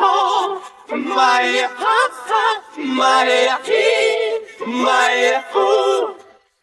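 Background music: unaccompanied vocal singing in short phrases of held notes, stopping about six seconds in.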